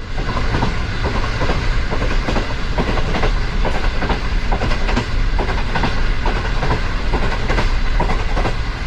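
Train running along track, a steady rumble of the wheels with repeated clickety-clack as they pass over rail joints.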